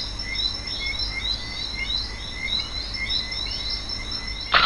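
Nature-sound backing track of rapid, repeated short chirps over a steady low background. A quick downward-gliding swoop near the end is the loudest sound.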